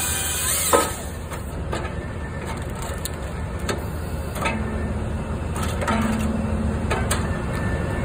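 Skid steer engine running steadily, with sharp metallic knocks and clanks every second or so and a low steady hum from about halfway to near the end.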